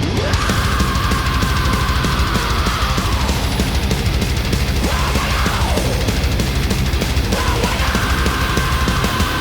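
Loud heavy rock or metal music with electric guitar over a steady drum beat.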